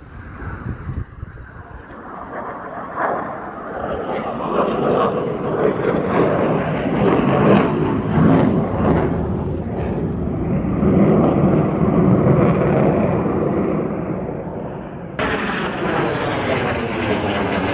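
Fighter jet flying over, a loud jet-engine roar that builds and swells through the middle. About fifteen seconds in the sound jumps to a fresh stretch of roar with a sweeping, phasing tone as the jet passes.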